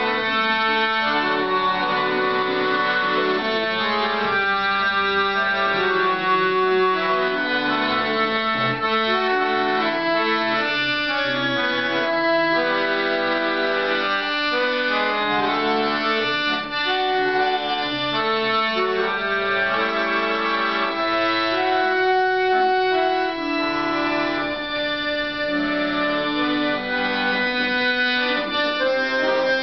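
Piano accordion played solo: a continuous tune of sustained reedy notes, a moving melody over held chords and bass.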